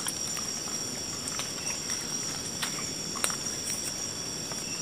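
Forest insects such as crickets chirring in a steady high drone, with a few faint clicks and knocks of plastic cups and plates being handled.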